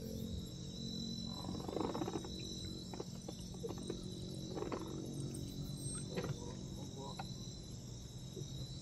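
Night insects chirring steadily at a high pitch, with a few light knocks as fishing rods and tackle are handled on a boat.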